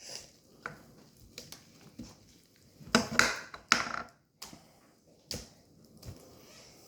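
Homemade slime being kneaded and stretched by hand: irregular sticky squelches and pops, with a louder run of squishing about three seconds in.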